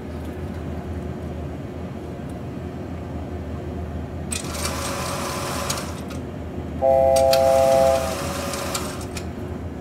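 Steady low hum of the Boeing 737-800 flight simulator's cockpit sound. About four seconds in comes a burst of hiss, then a second, longer one. During the second burst a loud buzzing tone sounds for about a second.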